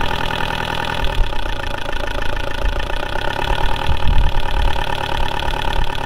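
Land Rover 300Tdi four-cylinder turbodiesel running with the revs raised a little, with a light tap tap tap from the mechanical fuel lift pump. The tapping could well be a weak spring in the lift pump.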